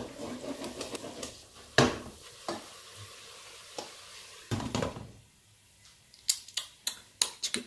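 A spoon stirring and scraping thick egusi paste in a stainless steel pot, knocking against the pot's side, over a low sizzle from egusi that is starting to burn on the pot bottom. About four and a half seconds in the glass lid is set on the pot, and near the end comes a run of sharp clicks.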